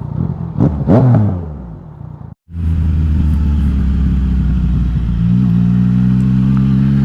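Yamaha XSR900's inline-three engine through an Akrapovič exhaust. A rev falls away about a second in. After a brief break in the sound, the engine runs at a steady speed and steps up slightly in pitch around five seconds in.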